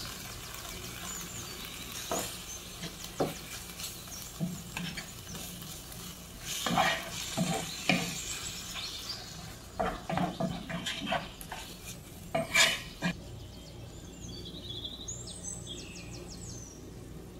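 Wooden spatula stirring and scraping spiced chicken pieces around a hot nonstick pan over a steady frying sizzle, in irregular strokes that are busiest in the middle.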